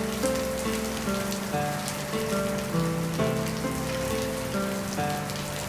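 Steady rain falling on wet patio tiles and potted bonsai, with many individual drops ticking sharply. A slow melody of held notes plays underneath.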